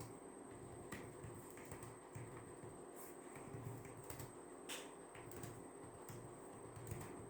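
Soft night ambience: a steady high-pitched cricket trill over a low fan hum, with a few scattered soft clicks of desk work.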